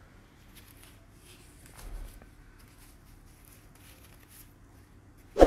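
Faint rustling of paper and foam-net fruit sleeves being handled while mangoes are unpacked from a cardboard box, with a soft bump about two seconds in and a sharp knock near the end.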